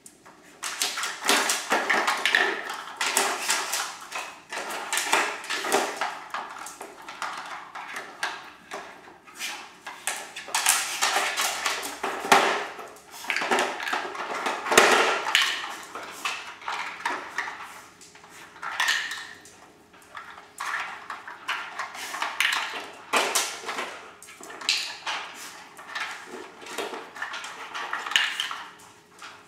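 Hard plastic dog treat-puzzle toys clattering and sliding on a tile floor as two Irish terriers nose at them, knocking the loose plastic pegs about: irregular rattling clicks and knocks, in busy spells with short lulls.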